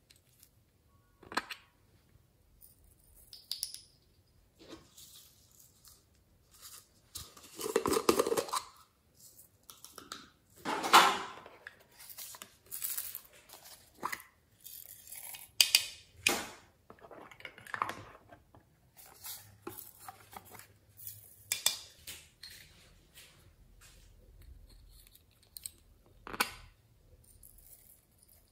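Small plastic containers being handled, clicking and clattering, while glitter is shaken and tapped out of them into a glass dish. Irregular clicks and taps are broken by a few rustling pours about a second long.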